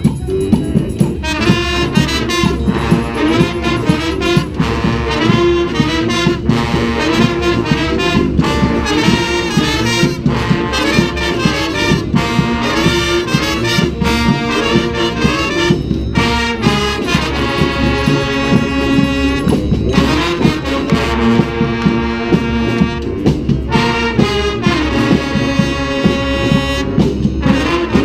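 Street brass band of trombones, trumpets and saxophones playing a New Orleans–style brass-band tune together, with a steady beat underneath.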